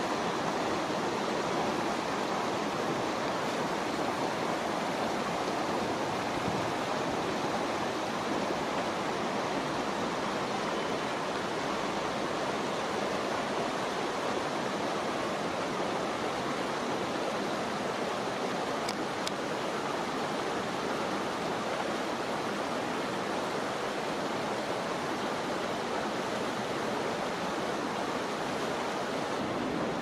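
Shallow stream water flowing, a steady even rush that does not change.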